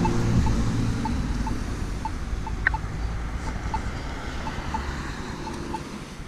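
Road traffic moving through the intersection, fading out, with a Polara Navigator accessible pedestrian push button's short, faint ticks about twice a second.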